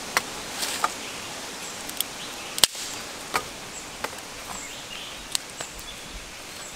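Small fire of dry sticks crackling, with about ten sharp pops and snaps scattered through it, the loudest about two and a half seconds in, over a steady background hiss.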